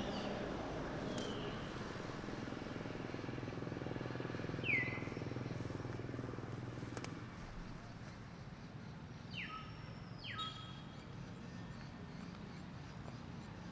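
A few short, high-pitched animal chirps, each falling in pitch, the loudest about five seconds in and two close together near the end, over a steady low hum.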